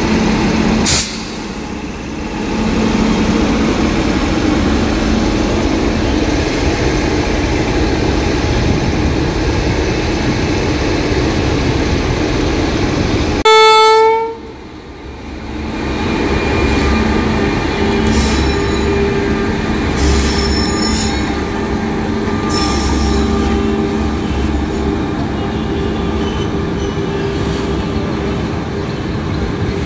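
A WAP-5 electric locomotive stands humming steadily, then gives one short, loud horn blast about halfway through. It then pulls the passenger train away, the coaches rolling past with clacks over the rail joints.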